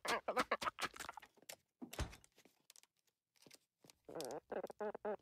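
Cartoon chewing and crunching sound effects, a quick run of wet crunches and clicks from food being passed mouth to beak into a dodo. Near the end comes a short wavering, warbling vocal sound.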